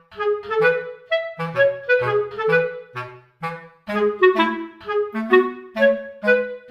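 Background music: a light instrumental tune in short, quick notes over a bouncing bass line.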